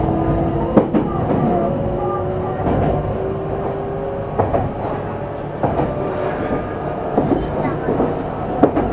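Meitetsu 300 series EMU (set 317F) running, heard from inside the car: a steady rumble with a whine from the traction motors that rises slightly and fades about four seconds in, and irregular clicks of the wheels over rail joints.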